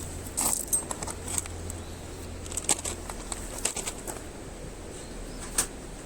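Sparse, irregular sharp snaps and crackles of kindling at a wood campfire, with a handful of louder pops.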